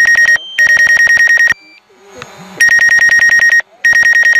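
Drone remote controller's low-battery alarm: rapid electronic beeping, about ten beeps a second, in bursts of about a second with short pauses, warning that the DJI Mavic Pro's battery is low and it must land.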